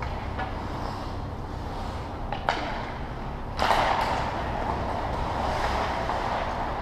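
Hockey game sounds: a couple of sharp knocks, one about half a second in and one about two and a half seconds in. Just past the middle a steady rushing noise rises suddenly and holds.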